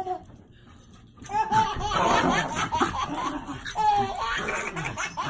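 A baby laughing in short, pitched bursts, starting about a second in after a brief lull.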